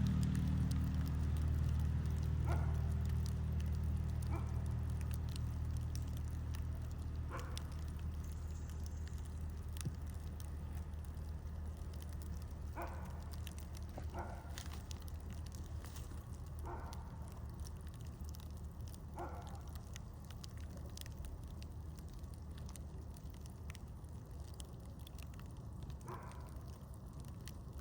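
Campfire burning, with scattered sharp crackles and pops of the wood over a low rumble that slowly fades away.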